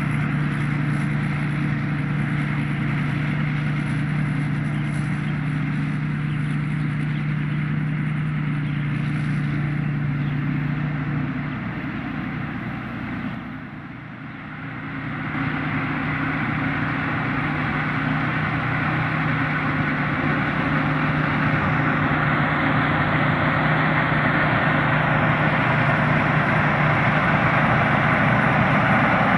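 Thai Seng Yont combine harvester running steadily while harvesting rice, a constant engine hum over machinery noise. The sound fades down for a few seconds a little before halfway, then comes back and grows slightly louder toward the end.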